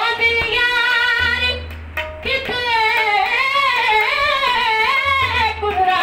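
A woman singing long, ornamented held notes that waver up and down, in two phrases with a brief break about two seconds in, over a low instrumental accompaniment.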